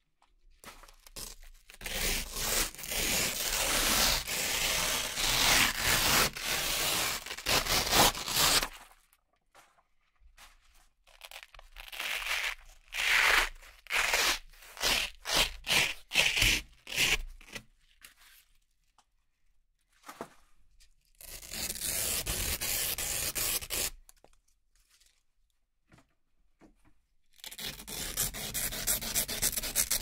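Hook-and-loop (Velcro) strips being peeled apart, a crackling tearing sound that comes in several bouts of a few seconds each, with short pauses between them.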